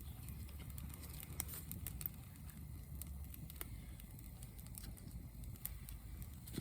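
Outdoor ambience: a steady low rumble with a few scattered sharp clicks and crackles.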